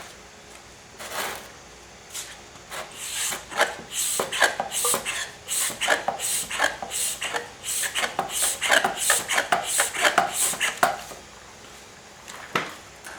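Rapid, irregular knocking and scraping of hands working the Liquivac extractor's suction tube down into the mower's oil fill tube. It starts about a second in, grows dense, and stops a couple of seconds before the end.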